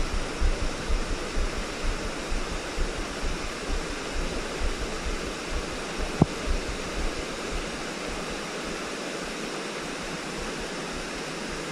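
Steady rush of flowing creek water, with uneven low rumbling through the first half and a single sharp tick about six seconds in.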